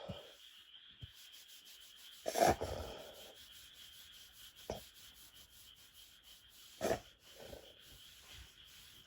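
A Doberman's noisy breaths through the nose: a few separate rasping airflow sounds, the loudest about two seconds in and lasting under a second, with shorter ones later. This is typical of a reverse-sneezing episode.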